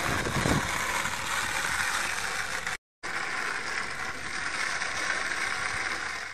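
Skateboard wheels rolling on rough asphalt: a steady gritty rolling rattle, broken off for a moment just before three seconds in, then rolling on.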